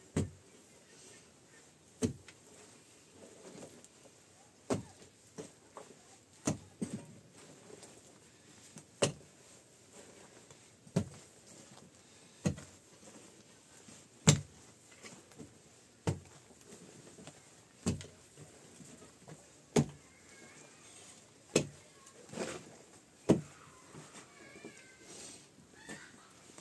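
A pickaxe striking and breaking up a hard-packed layer of earth on the floor, one sharp blow about every two seconds.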